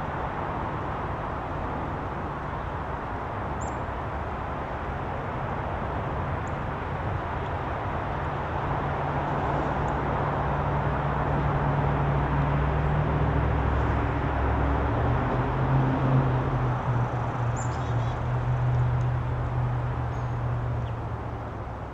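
Steady outdoor background noise with a low engine hum that grows louder partway through and eases off near the end, and a few faint, short, high bird chirps.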